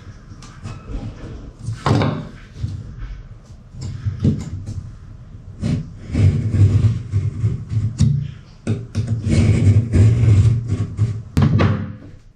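Irregular knocks and thuds as vinyl floor planks are laid and tapped into place, with denser bouts of knocking about halfway through and again later.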